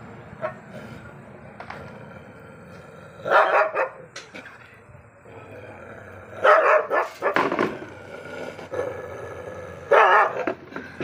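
A dog barking in three bursts of a few barks each: about three seconds in, a longer run around six to seven and a half seconds, and again near the end.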